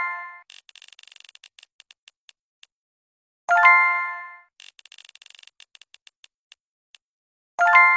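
Spinner-wheel app sound effects: a run of quick ticks that slows down and stops as the wheel comes to rest, then a bright ringing chime as it lands on a result. This happens twice, with a chime already ringing at the start and another near the end.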